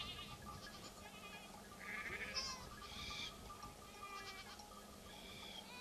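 Goats bleating, several short quavering calls one after another.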